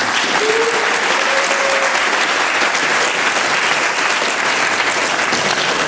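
Audience applauding, a dense steady clapping from a large seated crowd.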